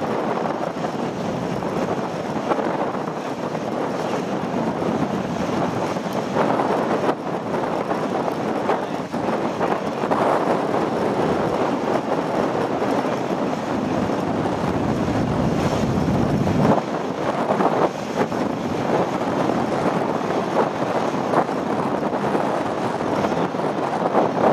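CAC Sabre jet fighter's Rolls-Royce Avon turbojet running as the jet flies a low, gear-down approach, a steady rushing jet noise. Wind buffets the microphone as a low rumble that drops away suddenly about two-thirds of the way through.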